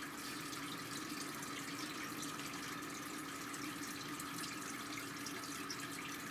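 Steady background hiss with a constant low hum underneath, unchanging throughout.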